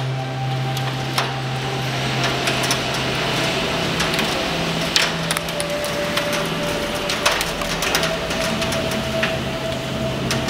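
Heavy hailstorm with a downpour: a steady rush of rain with many irregular sharp cracks and clicks of hailstones striking, the loudest about 1, 5 and 7 seconds in.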